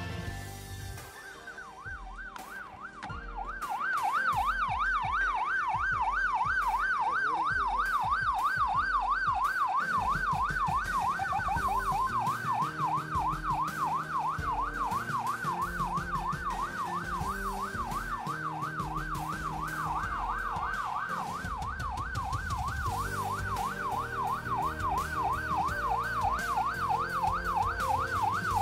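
Police patrol car's siren on yelp: a fast rising-and-falling wail, about three sweeps a second, that starts about a second in and keeps going.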